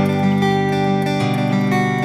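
Background music led by a strummed acoustic guitar, its notes held and changing about a second in.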